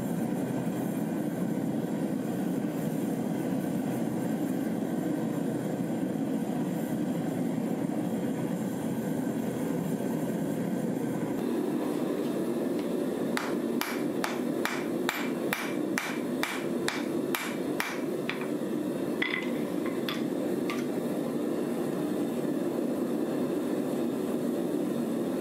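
Hand hammer striking a white-hot stack of scissor-blade steel on an anvil to forge-weld it: a fast run of about fifteen blows, roughly three a second, starting about halfway through, then three slower, ringing strikes. Under it the forge runs with a steady roar.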